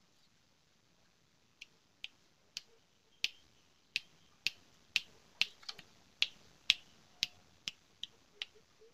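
Yellow-vented bulbul (trucukan) giving a run of short, sharp chip notes, about two a second. The notes start about a second and a half in, are loudest in the middle and grow fainter near the end.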